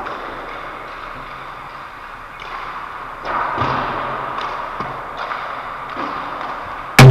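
Ice hockey play: skate blades scraping on the ice, with light knocks of sticks and pucks. About seven seconds in comes one very loud sharp bang with a short low ring.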